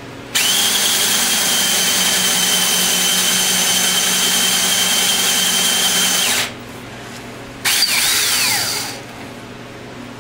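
Power drill running with a steady whine as an 11.5 mm bit bores through a rock-hard stabilized maple pen blank. It stops about six seconds in, then runs again briefly a second later and winds down, its pitch falling.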